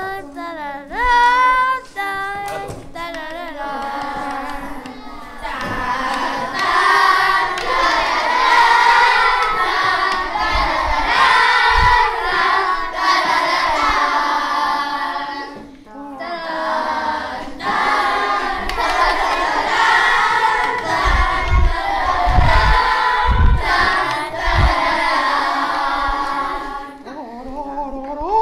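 Children's voices singing and wailing, at first a few separate sliding cries, then many overlapping voices together like a choir. A few dull low thumps come in the last third.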